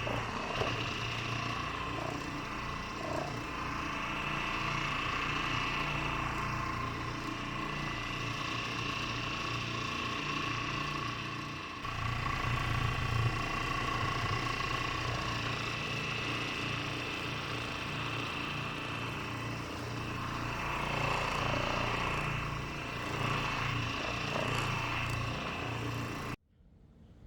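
Hyper Orbit CT orbital polishing machine running steadily with honeycomb pads on a quartz countertop: a low hum under a steady whine. It cuts off abruptly shortly before the end.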